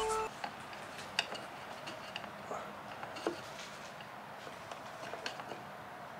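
A screwdriver working at the plastic suction jet pump and its hose fittings in a car's engine bay: a few faint, scattered small clicks and ticks over a quiet background.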